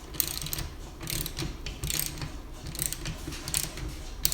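Socket ratchet tightening a 9/16 clamp bolt, its pawl clicking in a short burst on each back-swing, a little more than once a second.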